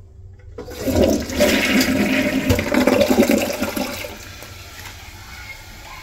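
Glacier Bay dual-flush toilet flushing on the half-flush button: a loud rush of water starts about half a second in and runs for about three and a half seconds, then falls to a quieter running of water.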